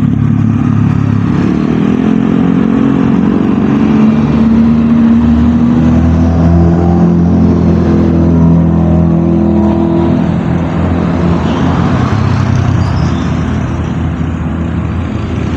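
A motor vehicle engine running loudly, its pitch shifting up and down as it revs.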